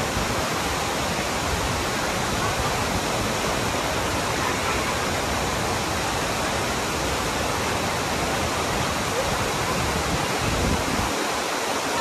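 Large waterfall cascading down a cliff and over a rocky streambed: a steady, even rush of falling water.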